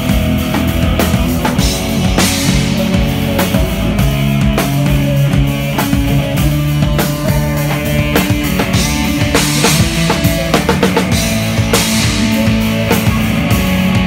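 Rock band playing live, led by a drum kit hit hard with kick, snare and several cymbal crashes over held bass and guitar notes.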